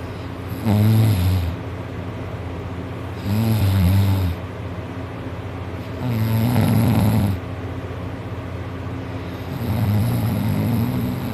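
Loud snoring from a heavy sleeper: four low, rasping snores, each about a second long, coming roughly every three seconds.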